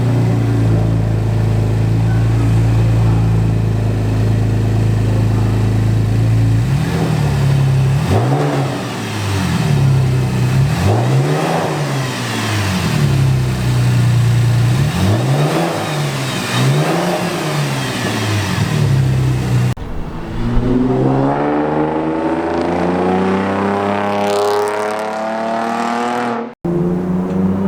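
2010 Chevrolet Camaro's 3.6-litre V6, fitted with a Volant cold air intake, idling steadily, then revved about five times in quick blips. After a cut, the car accelerates under load with the engine pitch climbing.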